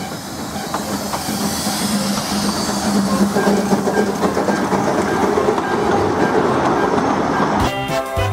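Narrow-gauge steam train running past, its locomotive and coaches rolling along the track in a steady, building rumble. Near the end, music takes over.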